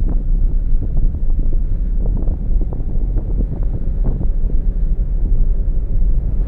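A car driving along a road, heard through an on-board camera's microphone: a steady low rumble of road and wind noise, with many small clicks and knocks from the tyres on the road surface.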